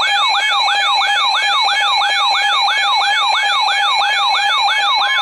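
Weather radio's electronic alert siren, a loud yelping tone that sweeps up and down about three times a second, sounding as an emergency weather alert comes in.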